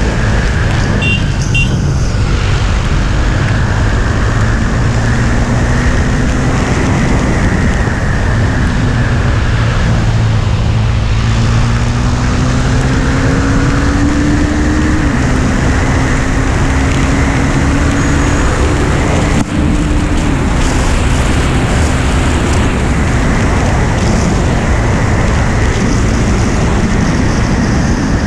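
KTM Duke 390 single-cylinder engine running under way at speed, with heavy wind rush on the microphone. The engine note climbs slowly in the middle, drops back a step and then holds steady.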